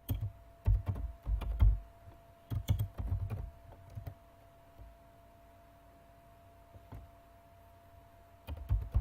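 Computer keyboard typing in quick bursts of key clicks, pausing for a few seconds in the middle and starting again near the end.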